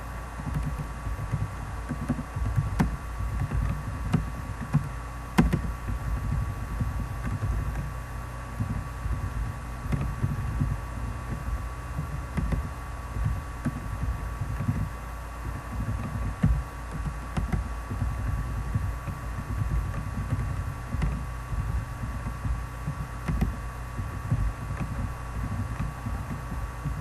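Computer keyboard typing, heard mostly as irregular soft low thuds with an occasional sharper click, over a steady electrical hum with a thin steady tone.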